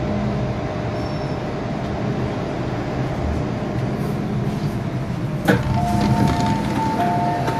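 MTR M-Train electric multiple unit running slowly and coming to a stop, a steady rumble. About five and a half seconds in there is a sharp clunk, then a two-tone door chime sounds as the doors open.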